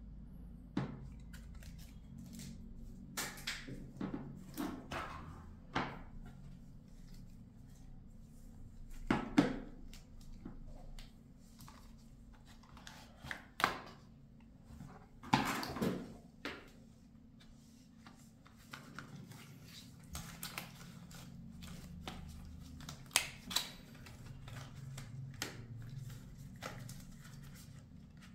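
A smartphone box and its contents being handled during unboxing: scattered knocks, clicks and rustles of packaging and the phone, the loudest knocks about 9, 15 and 23 seconds in, over a faint low hum.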